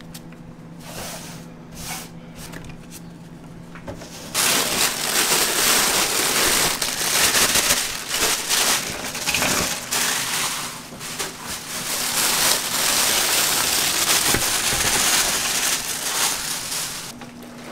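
Electric meat grinder mincing raw meat: a loud, rough grinding noise that starts about four seconds in and stops shortly before the end. A low steady hum sits under the quieter parts.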